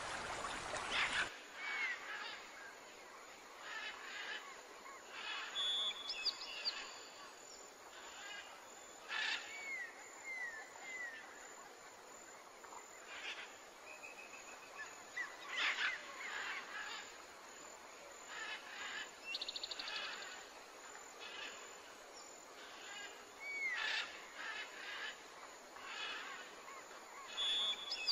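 Running water that cuts off about a second in, then an outdoor ambience of assorted birds calling: short chirps, falling whistles and one brief rapid trill.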